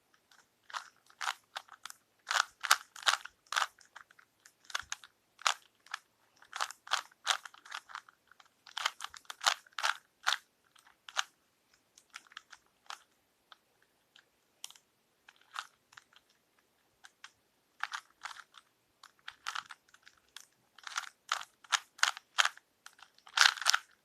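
Plastic Rubik's Cube being twisted by hand, its layers clicking and clacking in quick runs of turns with short pauses between, thinning out for a few seconds midway.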